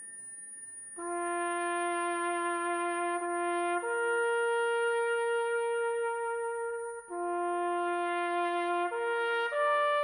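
Music: a slow brass melody of long held notes, entering about a second in, stepping up a fourth, falling back, and climbing higher near the end.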